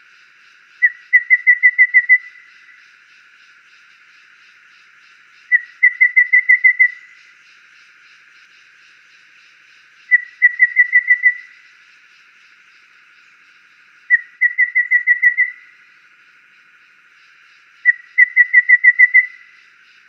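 Golden babbler singing: five whistled phrases about four seconds apart, each a single piping note followed after a short gap by a fast run of six or seven even notes on one pitch.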